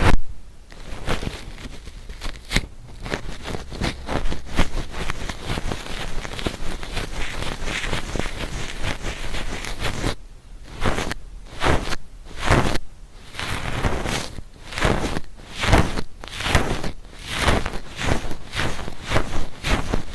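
Ear-cleaning tool scraping and rubbing close on a binaural ASMR microphone's ear. The first half is dense, fine scratching. From about halfway it turns to a steady run of louder strokes, about two a second.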